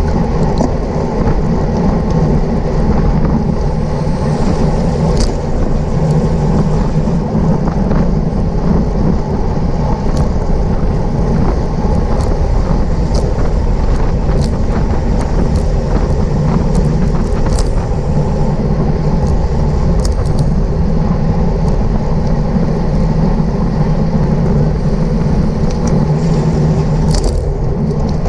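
Loud, steady wind rush and road noise on a bicycle-mounted or rider-worn camera microphone while riding at race speed in a pack, with a few scattered sharp clicks.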